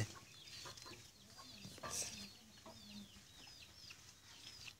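Faint chickens: chicks cheeping in many short, high, falling peeps, with a few low clucks about two to three seconds in.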